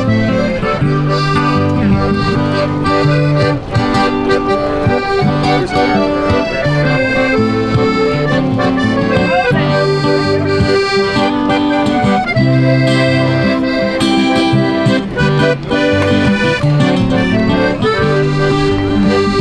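Accordion music: a tune played over sustained chords and a repeating bass line.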